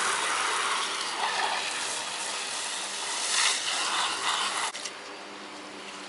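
Garden hose spray nozzle jetting water into a plastic litter box, a steady hiss and splatter that cuts off about three-quarters of the way through.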